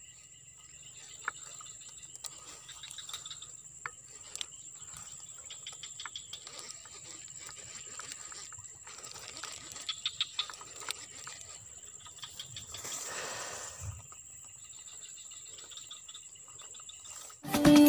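Insects trilling steadily on one high note, with faint scattered clicks from a baitcasting reel being handled and a brief swish about two-thirds of the way through. Near the very end the insects cut off and loud electronic music starts.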